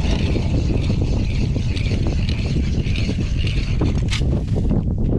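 Ice auger drilling steadily through lake ice, a continuous mechanical run with strong wind rumbling on the microphone.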